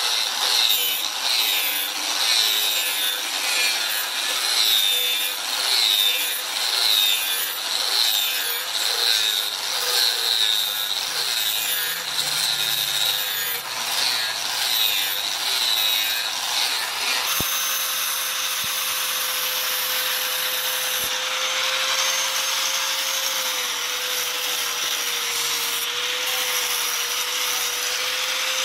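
Angle grinder with a flap disc grinding a steel knife blade, the grinding swelling and fading about once a second as the disc is swept along the blade. After about two-thirds of the way it settles into a steadier whine.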